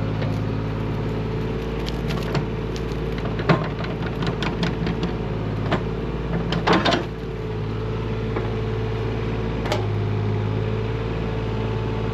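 Mini excavator's diesel engine running steadily under digging, with scattered knocks and scrapes from the bucket working dirt and gravel; the loudest knocks come about three and a half and seven seconds in.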